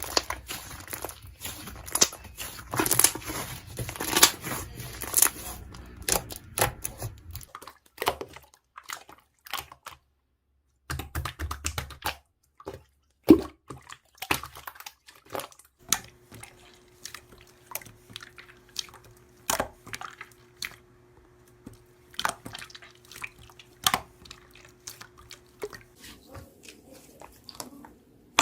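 Hands squishing and poking slime, making irregular crackling clicks and pops. A faint steady hum runs under the clicks for a stretch in the second half.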